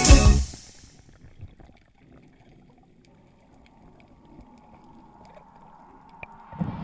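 Faint underwater ambience picked up by a diving camera: a low, muffled water hush with scattered small clicks and crackles. Background music cuts off within the first second and swells back in near the end.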